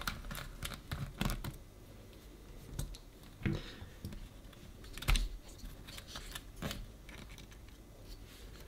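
Scattered small clicks and taps of fingers and a small tool working at a MacBook Pro's battery connector and bracket, irregular, with one louder click about five seconds in.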